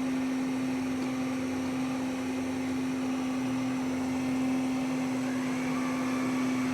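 Samsung VR10M7030WG robot vacuum running on a high-pile carpet: a steady suction-motor hum with one constant tone, and a faint higher whine rising in about five seconds in.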